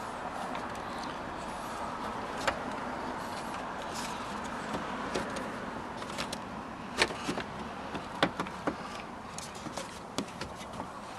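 Scattered sharp clicks and taps of door-handle and bezel parts being handled during a car door repair, over a steady background hiss. The sharpest snaps come about seven and eight seconds in, followed by a run of smaller clicks.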